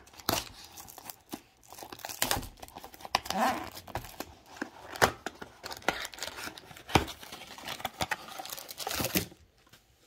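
Plastic wrap being torn and crinkled off a cardboard mini-box of trading cards, and the foil packs rustling as they are pulled out. Irregular crackling with a few sharp clicks.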